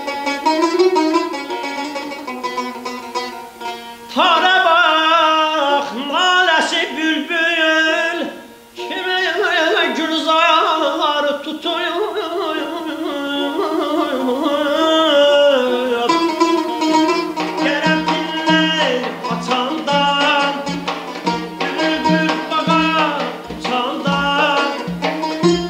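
Azerbaijani mugham performance: a plucked tar melody, then a male singer comes in about four seconds in with ornamented, wavering mugham singing. About two-thirds of the way through a gaval frame drum joins with a steady beat under the voice and strings.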